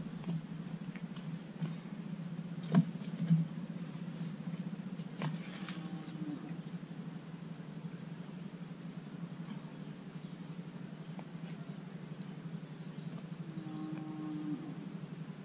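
A couple of sharp wooden knocks about three seconds in, as a bolo or axe strikes a log being split for firewood, with a lighter knock a couple of seconds later. A steady low hum runs underneath.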